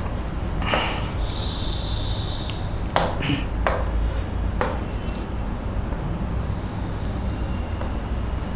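A few sharp taps of a stylus on an interactive display board as writing is added, over a steady low hum.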